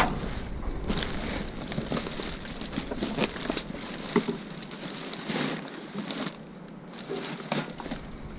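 Plastic bags and packaging rustling and crinkling as they are handled, with a few sharp knocks and clicks in between.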